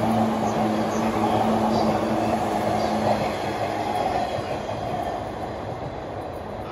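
JR 185 series express electric train passing through a station without stopping: steady wheel-on-rail running noise, with a low hum that stops about three seconds in. The noise then fades as the train moves away.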